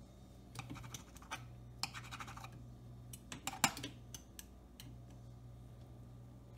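Metal spoon scraping and tapping on a nonstick frying pan with a speckled stone-style coating, spreading a dab of margarine around. Irregular scrapes and clicks come over the first four seconds or so, the sharpest a little past the middle, then only a faint scrape or two.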